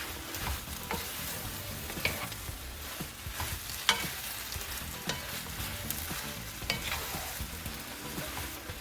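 Chopped cabbage frying with a steady sizzle in its own released juices, with a utensil clacking against the pan every second or so as it is stirred.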